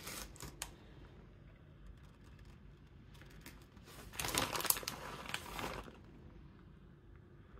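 Plastic bag of grated cheese crinkling and rustling as a hand reaches in for cheese, briefly near the start and again, louder, for about two seconds from four seconds in.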